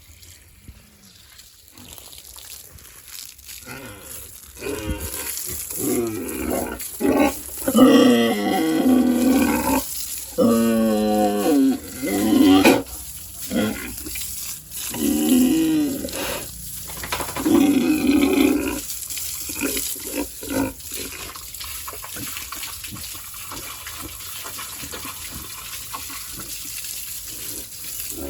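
Pigs squealing loudly in a string of drawn-out calls, then a steady hiss of spraying water for the last several seconds.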